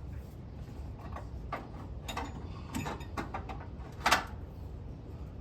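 Hand tools and metal parts clicking and clinking as something is worked loose: a string of irregular short clicks, with one louder knock about four seconds in.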